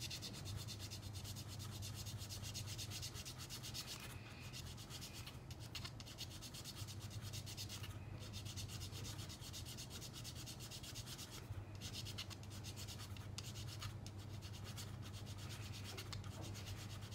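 Needle file rasping in fast back-and-forth strokes on the plastic of an airsoft gas-blowback magazine, stopping briefly a few times. The plastic is being thinned slightly to cure a gas leak at the magazine-catch slot. A steady low hum runs underneath.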